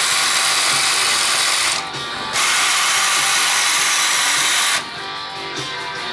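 A small mechanism whirring in two bursts of about two seconds each, with a short break between, over rock guitar music.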